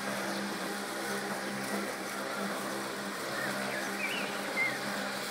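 Robomow RS630 robotic lawn mower's electric motors humming steadily as it drives and mows across the grass.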